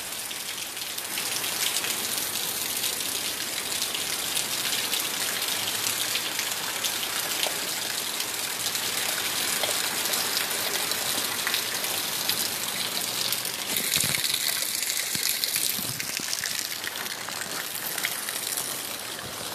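Heavy rain pouring down steadily, a dense even hiss of rain on surfaces.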